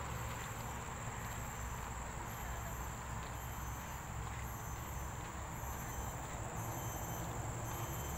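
Insects trilling steadily in a constant high-pitched hum, with a low rumble underneath.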